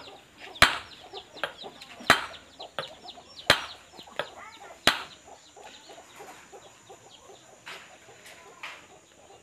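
Hammer blows on a steel punch set on the shaft of a tractor water pump during a rebuild: four sharp metal strikes about a second and a half apart, then two lighter taps near the end.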